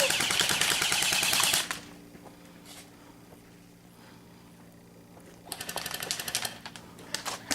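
Airsoft electric guns firing full-auto bursts, a rapid clatter of shots. A loud burst of about a second and a half at the start, then a quieter burst about five and a half seconds in, followed by a few single shots near the end.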